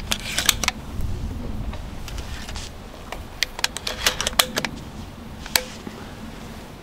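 Sharp clicks of a 20-gauge shotgun being handled and loaded with a slug. There are a few clicks in the first second, a quick run of them about three and a half to four and a half seconds in, and one last click near the end.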